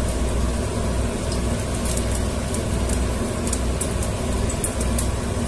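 Ghee and refined oil heating in a stainless-steel pressure cooker, starting to crackle: scattered faint pops and ticks from about a second and a half in, over a steady low hum.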